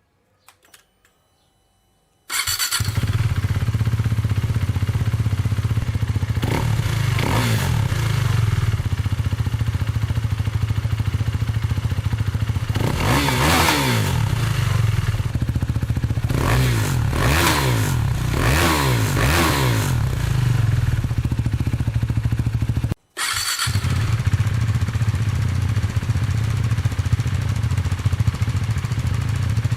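KTM Duke 390's single-cylinder engine running through a Yoshimura Alpha-T slip-on exhaust. It comes in suddenly about two seconds in and settles to an idle, with a series of throttle blips in the middle where the pitch rises and falls. It breaks off for a moment about three-quarters of the way through, then idles on.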